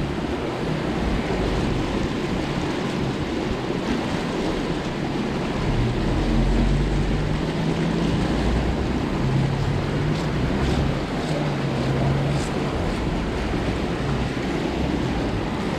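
Steady rush of water pouring and churning into a canal, with a low rumble underneath.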